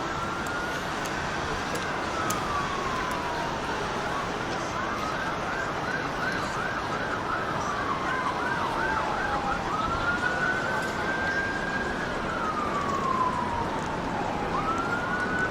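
Emergency vehicle siren: a slow wail rising and falling, switching to a fast yelp for about five seconds in the middle, then back to the slow wail, over steady background noise.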